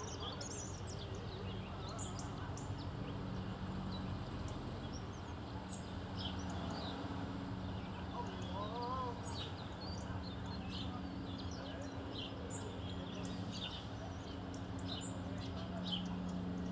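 Small birds chirping in many short, high calls over the murmur of a gathered crowd, with a low steady hum underneath.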